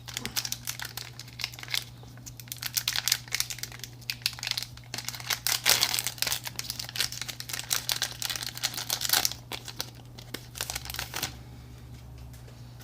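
Foil wrapper of a Pokémon trading-card booster pack crinkling and being torn open, in dense irregular crackles that die away about a second before the end, over a low steady hum.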